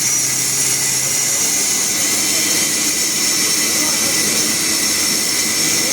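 Sawmill machinery running steadily: a constant loud whine and hiss that does not change, with faint voices under it.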